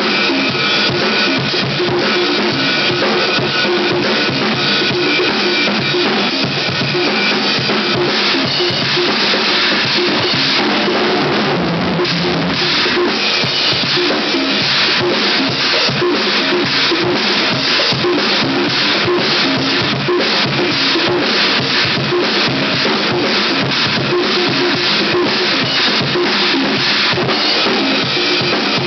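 Live drum jam: a Pearl drum kit plays a steady groove with bass drum, snare and ringing cymbals, while a conga is struck by hand over it. The hits are dense and continuous.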